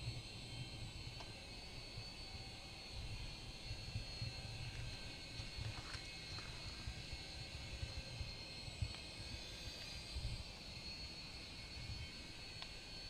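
High-pitched whine of a DEERC toy RC helicopter's small electric rotor motors as it flies, the pitch shifting slightly with throttle, over an uneven low rumble.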